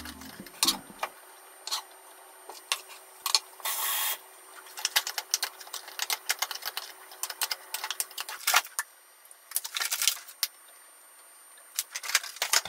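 Rice paddle mixing cooked rice in a pot, with scattered clicks and taps of the paddle against the pot's side and rim and a longer scrape about four seconds in.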